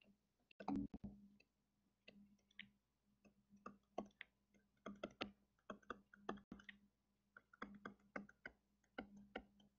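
Faint, irregular clicks and taps of a stylus on a tablet screen during handwriting, with a louder knock about a second in and a faint steady hum underneath.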